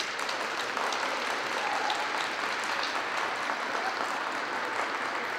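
Audience applauding steadily in an arena at the end of a figure skating program.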